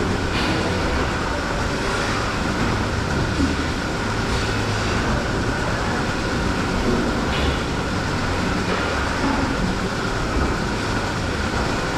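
Dairy milking-shed machinery running steadily during milking: a continuous mechanical rumble and hum with a few faint clicks.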